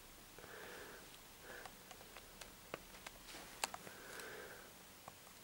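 Quiet room with a few faint, sharp clicks scattered through, the clearest a little past halfway, and some soft rustling.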